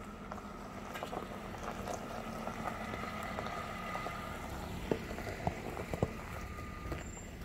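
BMW 525i rolling slowly over a rough dirt track, its tyres crackling over gravel and stones with many small clicks, and its straight-six engine running low beneath. Three sharper knocks come a little past the middle.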